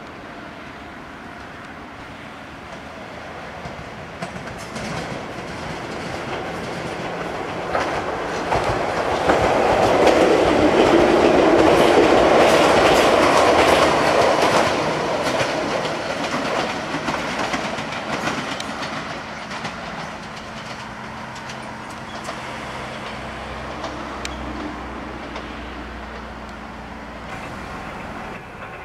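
Ichibata Electric Railway 3000-series two-car electric train approaching and going past, its rumble building to a peak about ten to fifteen seconds in, with wheels clattering over the rail joints, then fading away. A low steady hum remains afterwards.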